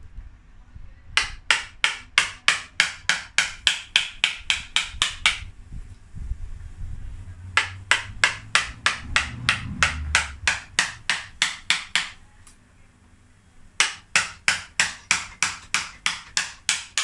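Mallet striking a gouge to carve broken dead wood out of an elm cutting's trunk. Sharp wooden knocks come at about four a second in three runs, with short pauses between them.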